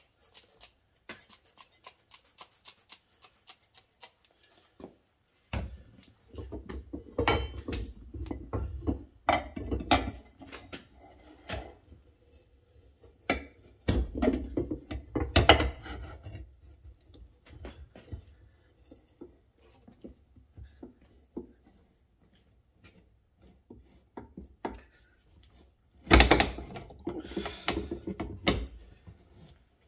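A tire being worked onto a small wheel rim by hand: scattered light clicks at first, then rubbing and scraping of rubber on the rim with knocks and clinks of handling, loudest near the end.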